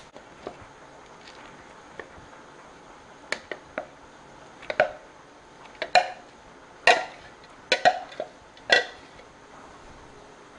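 A metal spoon clinks against a glass measuring cup and a glass mixing bowl while shredded cheese is scraped out of the cup. There are about ten short, irregularly spaced taps, some with a brief glassy ring.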